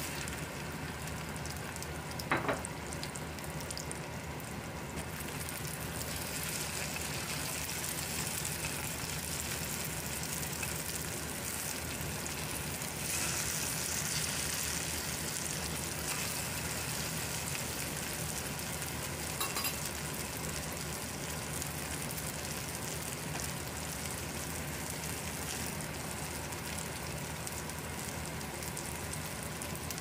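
Food frying in hot oil: a steady sizzle that grows louder for a few seconds a little before halfway, with two short clicks, one about two seconds in and one about two-thirds of the way through.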